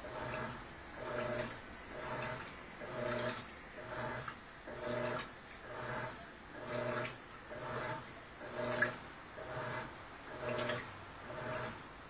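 Electrolux Turbo Economia LTD11 top-load washing machine agitating a bedspread in soapy water: the agitator swings back and forth about once a second, each stroke a low motor hum with a swish of sloshing water.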